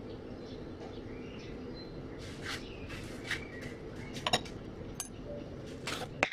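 Steady low background hum with a few scattered light clicks and clinks and some brief high chirps, and one sharper click near the end.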